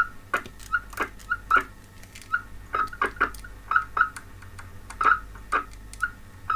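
A series of short electronic beeps, each with a click, coming irregularly at about two to three a second, as buttons or controls on the bench radio gear are worked.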